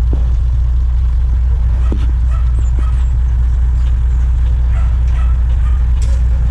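Truck engine idling: a steady, unchanging low rumble.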